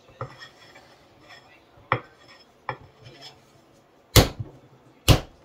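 Paddle slapping a block of clay to beat it into shape: a handful of spaced slaps, the two loudest near the end.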